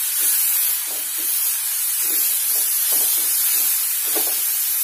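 Vegetables frying in butter in a kadhai with a steady sizzling hiss, while a hand masher mashes them against the pan with soft thuds about twice a second.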